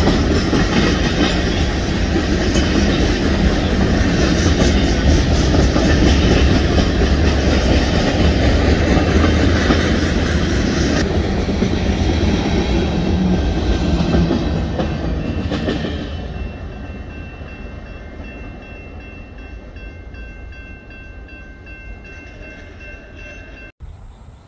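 Freight train cars rolling past close by, wheels clattering over the rails. The last car goes by about a quarter of a minute in and the rumble fades as the train pulls away, leaving the steady ringing of the grade-crossing bell.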